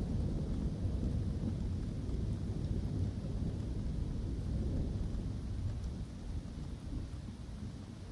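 Thunder in a summer storm rolling low and slowly dying away over steady rain.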